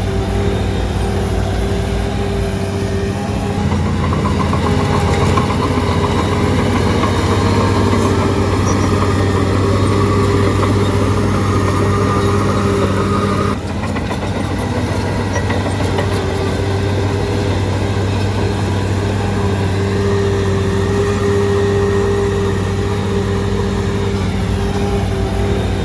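Diesel engine of a Shantui DH17C3 crawler bulldozer running steadily under work, with a whine that rises slowly in pitch over several seconds. About halfway through the sound drops and changes abruptly.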